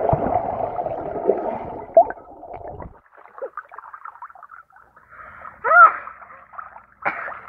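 Pool water heard through a submerged phone's microphone: a dense, muffled rush of bubbling water for about the first three seconds. After the phone surfaces there is light splashing, and a short loud vocal cry from the swimmer near six seconds.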